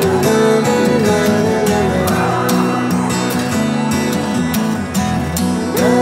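Background music led by strummed acoustic guitar, with a melody line over the chords.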